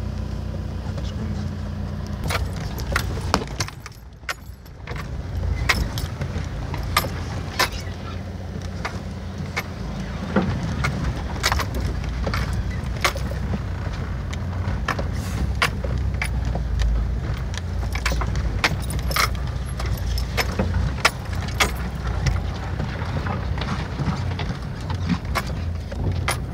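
Off-road vehicle crawling over a rough, rocky track, heard from inside the cabin: the engine runs low and steady under frequent sharp clicks and rattles as the vehicle jolts over stones, with a brief lull about four seconds in.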